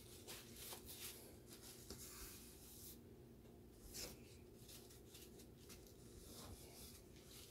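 Faint, intermittent rubbing of a paper towel wiping batter off the rim of a metal tube cake pan.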